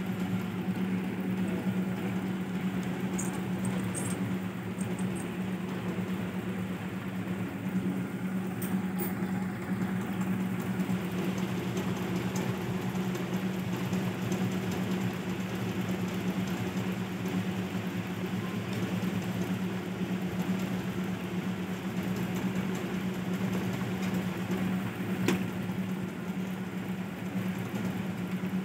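Steady low mechanical hum, like a motor or fan running. A few brief high clicks in the first ten seconds.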